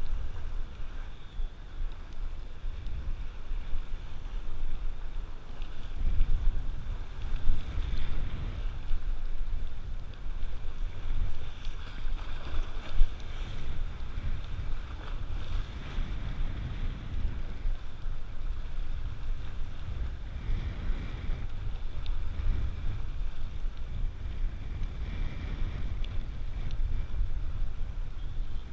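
Wind buffeting the microphone in an uneven low rumble, over the sound of the sea washing against the shore.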